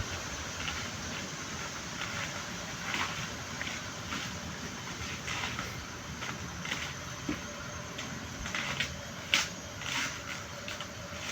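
Coconut husk being pried and torn apart by hand: irregular short crackles and snaps of fibre over a steady background hiss.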